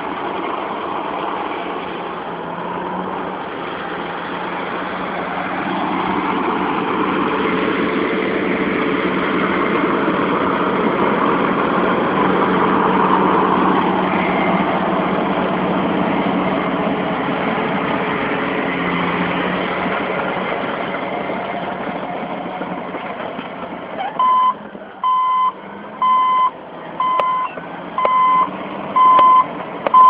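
Caterpillar D8N bulldozer's diesel engine running, swelling louder and then easing off. Near the end its reversing alarm sounds a steady beep about once a second as the engine drops to a lower level.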